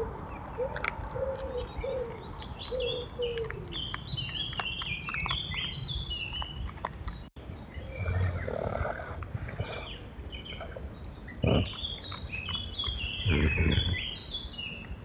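Woodland birdsong: a pigeon cooing in a repeated low phrase for the first few seconds, while small songbirds chirp and twitter throughout. Several loud low bumps come in the second half.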